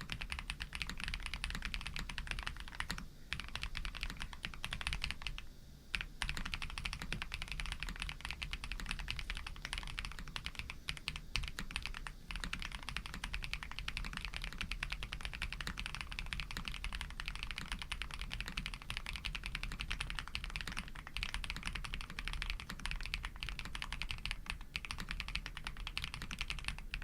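Fast continuous typing on a custom Tiger Lite 80 mechanical keyboard with lubed Pado v2 linear switches, GMK keycaps, a polycarbonate plate and full foam: dense clacky keystrokes, with short pauses about three and five and a half seconds in.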